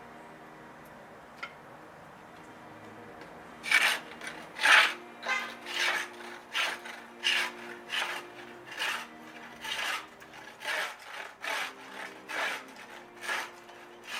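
Hand abrading a block of wood: an abrasive tool drawn back and forth across the surface in steady strokes, about one and a half a second, starting a few seconds in.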